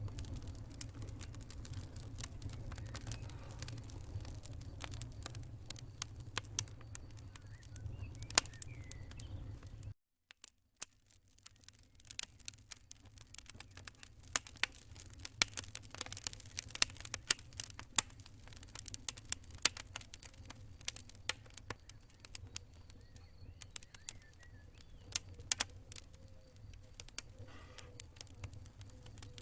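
Wood fire crackling in a fireplace: irregular sharp pops and snaps over a low, steady rumble. About ten seconds in, the sound cuts out for under a second, then the crackling resumes.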